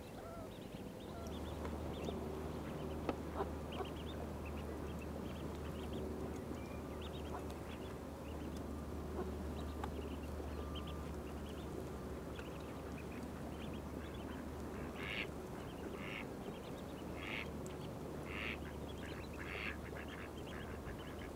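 Ducks quacking, with a run of about six calls roughly a second apart in the second half, over a steady low hum.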